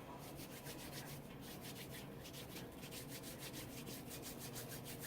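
Hands palm-rolling a loc of hair: palms rubbing quickly back and forth over the hair in a faint, even rhythm of several strokes a second.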